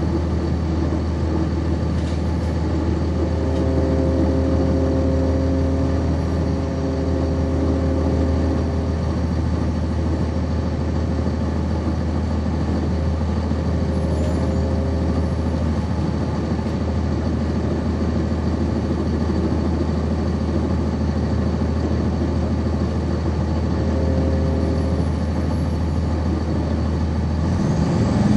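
Cummins ISC inline-six diesel engine of a 1999 Nova Bus RTS city bus running with a steady low drone, heard from inside the bus. A set of higher steady tones comes in about three seconds in, fades a few seconds later and returns briefly near the end.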